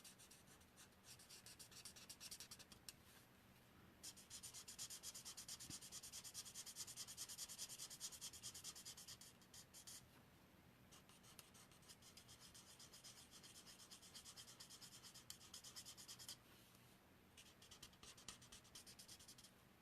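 Faint, quick scratchy strokes of a light Crumb Cake blending marker rubbed back and forth over a stamped image on card, colouring in a large area. The strokes pause briefly about ten seconds in and again about sixteen seconds in.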